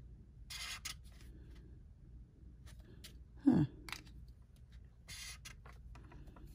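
Broad chisel-tip felt marker stroking across marker paper in short hisses as a swatch block is colored in, with soft handling clicks between strokes. About halfway through, a brief low sound falling in pitch stands out as the loudest thing.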